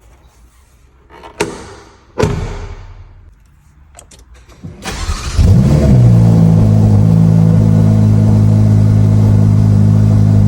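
Two sharp thumps and a few faint clicks, then about five seconds in the Ferrari F8 Tributo's twin-turbo V8 starts with a short rising flare and settles into a loud, steady idle.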